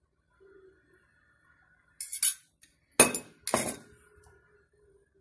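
Metal spoon clinking against a metal cooking pan: a brief scrape about two seconds in, then two sharp clinks about half a second apart, the first the loudest, each with a short ring.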